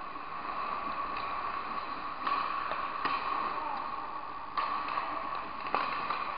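Ice hockey play in front of the goal: steady scraping of skates on the ice, broken by about four sharp clacks of sticks and puck.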